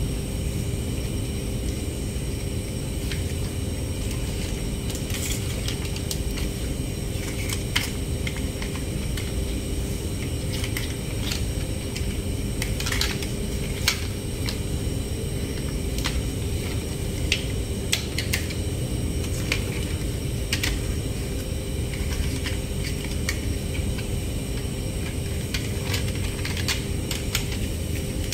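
Plastic toy trucks handled and set down on a tiled floor: scattered light clicks and taps, about a dozen across the stretch, over a steady low background hum.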